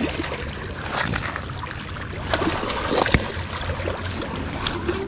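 Hooked spotted bass thrashing and splashing at the surface near the bank as it is reeled in on a spinning rod, over a steady noisy rush with low rumble; a few sharp splashes or knocks stand out about halfway through.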